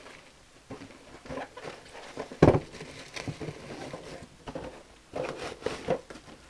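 Cardboard box and packaging rustling and knocking as a small metal desk fan is pulled out by hand, with a sharp knock about two and a half seconds in.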